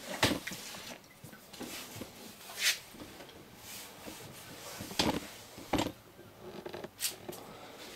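About five short, separate knocks and scrapes of hand tools and wood being handled on a wooden boat under construction; the clearest, about two and a half seconds in, is a brief hissing scrape.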